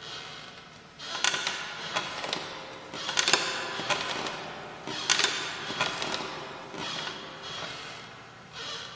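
Haunted-house sound effect: bursts of creaking and scraping, peppered with sharp rattling clicks, coming about every two seconds.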